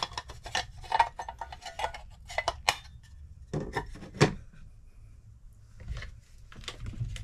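Hard plastic electrical modules (a relay control module and a breakout box) being handled and set down on a workbench. It is a quick run of small clicks and clinks, with two louder knocks about four seconds in and a few faint taps near the end.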